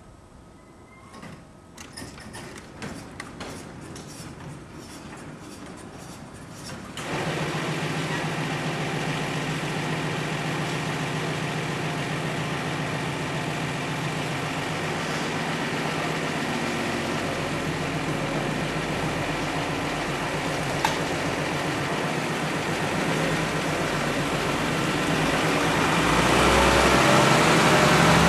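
A few seconds of scattered clicks and rattles, then a Mercedes-Benz THW equipment truck's diesel engine comes in suddenly about seven seconds in and runs steadily. Near the end it grows louder and deeper as the truck pulls out.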